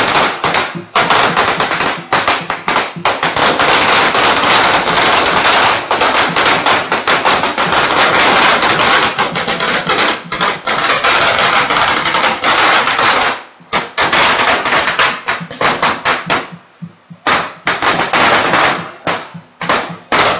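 Firecrackers going off in a loud, rapid, dense crackle of bangs, breaking off briefly after about thirteen seconds, then popping more sparsely and thinning out near the end.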